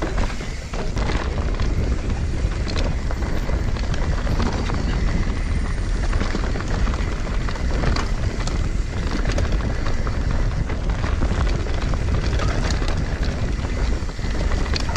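Wind buffeting the microphone over the tyre noise and rattle of a mountain bike descending a rough downhill trail, with frequent knocks as it hits bumps.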